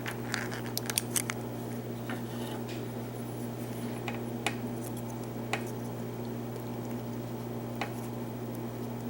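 Light metallic clicks and scrapes of a plug shim and key working in a small lock as the core is drawn out, busiest in the first second or so and then a few scattered ticks, over a steady low hum.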